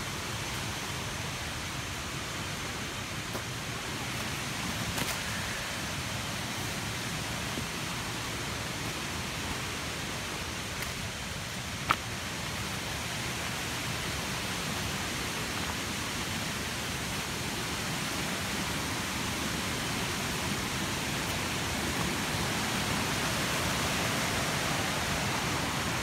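Steady rush of flowing water, growing a little louder near the end, with one sharp click about twelve seconds in.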